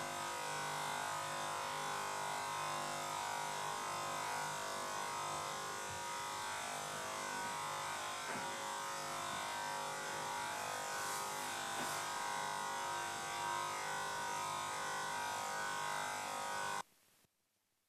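Electric shaver buzzing steadily as it shaves off thick hair, then cutting off suddenly near the end.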